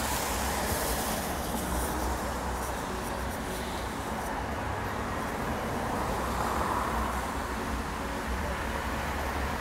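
Steady road traffic noise from cars going by on a wet city street.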